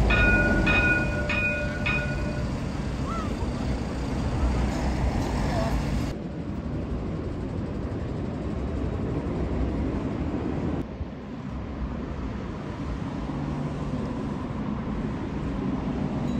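A tram passing with a low rumble, its warning bell ringing four times in quick succession over the first two seconds or so. After that, steady street noise with faint voices.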